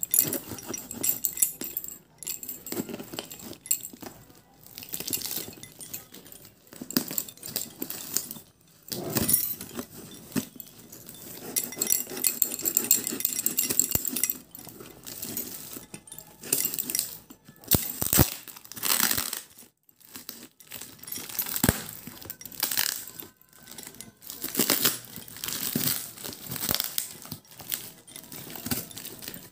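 Layers of brown packing tape and a cardboard carton being torn and peeled open by hand: irregular crinkling and ripping that comes in bursts with short pauses.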